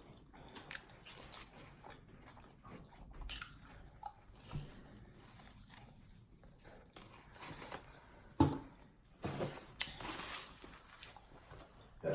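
A person biting and chewing a turkey submarine sandwich close to the microphone: scattered soft crunches and mouth clicks, with one louder sharp sound a little past eight seconds in.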